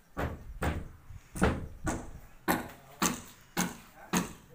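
Sharp knocks repeating steadily at about two a second, each with a short ringing tail.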